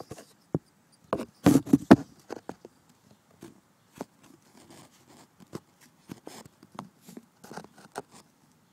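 Handling noise as a phone camera is moved and propped up: scattered taps, knocks and rubs, loudest in a cluster of knocks between one and two seconds in.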